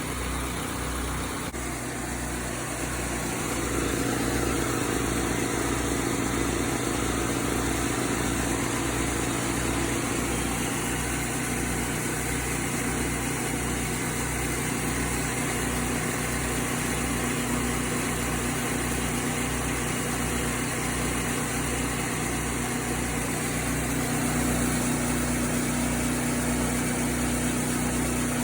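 Engine-driven 30-gallon service-truck air compressor running steadily under load, with an even low pulsing rhythm. It gets somewhat louder about four seconds in.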